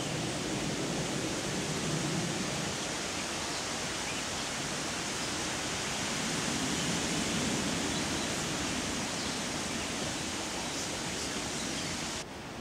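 Steady rushing outdoor background noise with a few faint high chirps. It drops suddenly and loses its top end near the end.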